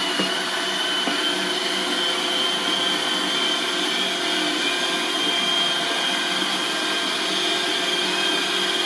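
Roomba robot vacuum cleaner running, a steady whir with a high whine over it.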